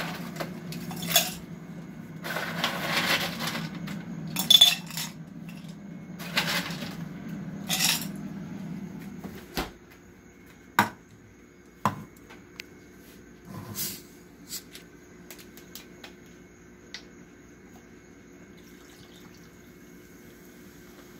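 Ice cubes clattering and rattling as they are taken from a freezer, then a few sharp separate clinks and knocks as cubes and cups are set down. Near the end, soda is poured faintly over the ice.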